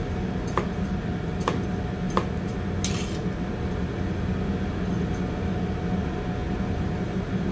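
Kitchen knife slicing cucumber on a cutting board: a few sharp taps in the first couple of seconds, then a short scrape about three seconds in. A steady low hum runs underneath.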